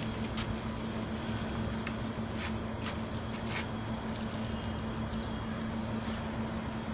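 A steady machine hum at one constant pitch, with scattered light ticks and patters over it.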